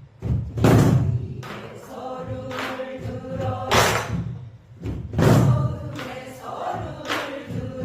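Pansori singing accompanied by a buk barrel drum in the jungjungmori rhythm, the singing and the drum's sharp strokes coming together. The voice holds long notes with a wide vibrato between the drum strokes, which fall about a second and a half apart.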